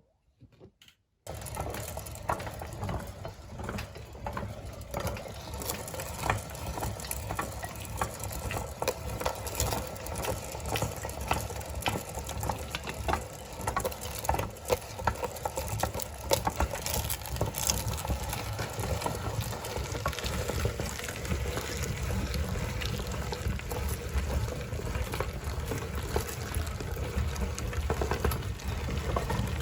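Meat grinder switched on about a second in and running steadily, a low mechanical drone with many small clicks and rattles as it grinds ice cream.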